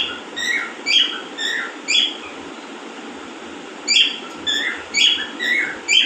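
Alexandrine parakeet giving short, squeaky chirps, about two a second, in two bursts with a pause of about two seconds between them.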